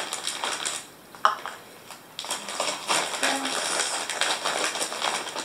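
Clear plastic bag of shredded mozzarella crinkling and rustling as it is opened and handled, with one sharp click about a second in.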